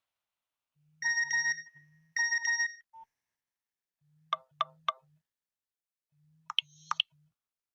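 Nokia mobile phone message tones played one after another: two short electronic chimes, then two sets of three quick blips. Short low buzzes in groups of three sound under each tone.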